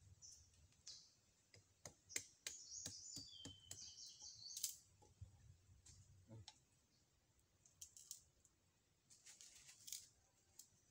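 Bolo knife cutting and scraping thin green plant stalks held against a coconut trunk: a faint, irregular run of sharp ticks and taps with short scraping hisses, busiest in the first half and again near the end.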